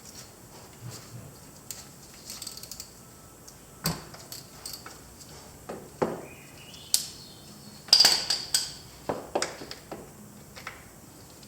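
Socket and wrench clinking against the ATV's 17 mm oil drain plug as it is loosened: irregular sharp metal clicks and clanks, loudest in a cluster about eight seconds in.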